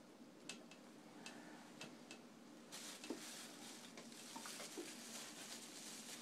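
Very quiet room with a few faint clicks, then from about three seconds in a soft breathy rustle from a man holding a handkerchief pressed to his face.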